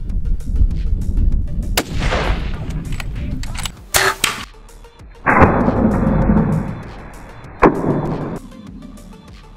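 Loud gunshots at mule deer over background music with a steady beat. One shot about two seconds in rings out with a long echo, sharp cracks follow around four seconds, and another shot comes near eight seconds.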